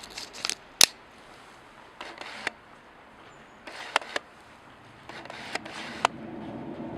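Irregular sharp clicks and crackles in small clusters, the loudest a single snap just under a second in. From about five seconds in a faint, steady low drone rises underneath.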